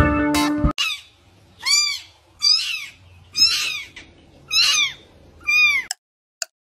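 A young kitten mewing five times: short, high-pitched calls about a second apart, each rising then falling in pitch.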